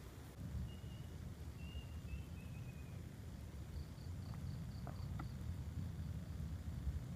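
Outdoor ambience: a steady low rumble underneath, a few faint chirps in the first few seconds, and about halfway through a quick run of about seven high pips lasting just over a second, with a few light clicks.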